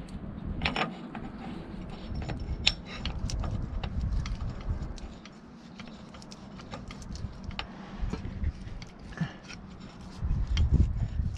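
Irregular metallic clicks and clinks of hand tools and parts being worked on the steel swing cylinder mounting of a John Deere 710D backhoe during cylinder installation. A low rumble sits underneath and grows louder near the end.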